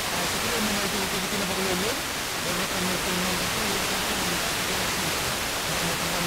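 FM radio receiving a weak, distant sporadic-E signal from Viti FM on 92.2 MHz: steady heavy hiss with a faint voice just audible underneath, the signal barely above the noise.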